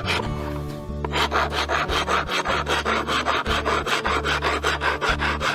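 Wood rasp filing a carved walnut plate in quick, even back-and-forth strokes, about three to four a second. The strokes are lighter for the first second, then steady.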